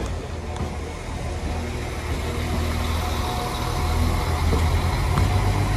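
Northern class 195 diesel multiple unit departing past the platform, its underfloor diesel engines running under power as the carriages go by. The sound grows a little louder toward the end.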